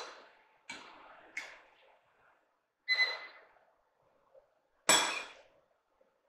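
Metal spoon clinking against a ceramic bowl while scooping shredded beef and gravy: four sharp clinks, the one near the middle ringing briefly, the loudest about five seconds in.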